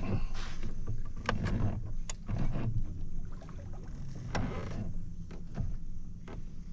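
Irregular light knocks and clicks with a few low thuds: handling noise from fishing gear and movement in a plastic kayak.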